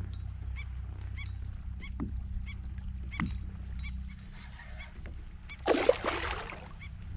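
A hooked bull redfish thrashing and splashing at the surface beside a kayak about six seconds in, a short loud splash that is the loudest sound. Before it there is a steady low hum and a run of faint, evenly spaced chirps, about three a second, that fade out.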